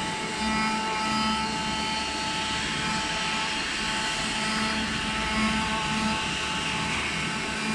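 CNC router with an oscillating knife head cutting a printed sheet: a steady mechanical whine over a hum, with a low pulsing that comes and goes.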